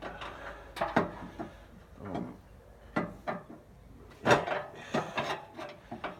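Pry bar clunking against the flywheel ring gear of an Allis-Chalmers Model B tractor engine as the seized engine is levered round by hand, turning stiff. About five irregular metal knocks.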